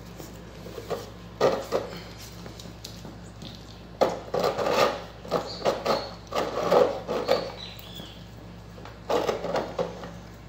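A dog and a young paca scuffling and rubbing against each other on a hard floor, in several short irregular bouts with a few light clicks, over a steady low hum.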